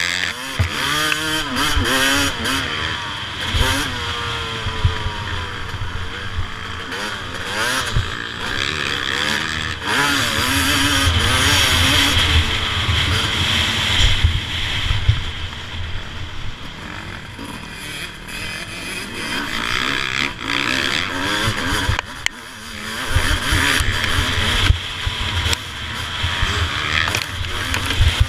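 Onboard sound of a 2007 Suzuki RM250 two-stroke motocross engine, revving up and dropping back repeatedly as the throttle is worked. Wind buffets the camera microphone throughout. The revs fall away briefly a little past two-thirds of the way in before picking up again.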